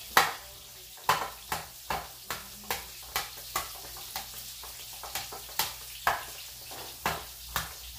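A metal utensil chopping and breaking up boiled cauliflower in a baking dish, clicking against the dish about twice a second in an uneven rhythm.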